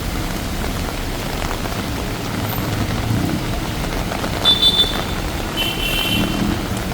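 Rain falling on a city street with traffic passing over the wet road. Two short high squeaks about four and a half and six seconds in.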